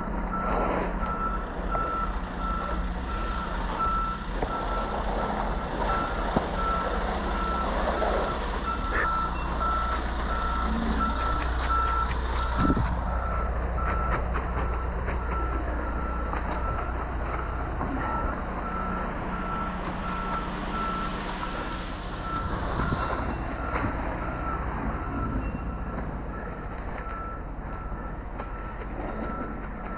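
Concrete mixer truck's backup alarm beeping at an even pace over the steady hum of its diesel engine.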